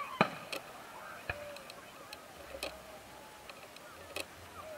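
Fireworks going off: one sharp bang just after the start, then several fainter cracks and pops spread over the next few seconds, with people talking faintly underneath.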